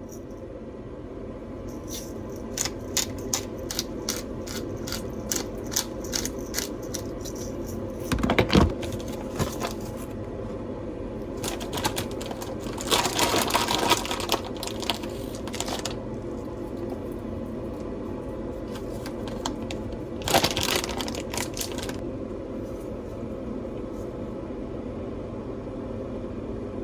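Kitchen work: a run of light clicks or taps, a clatter, and a few seconds of rushing noise, then another short burst, over a steady hum.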